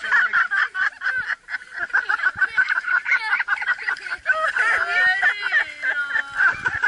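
Several people laughing in quick, high-pitched pulses, with one voice rising and falling near the middle.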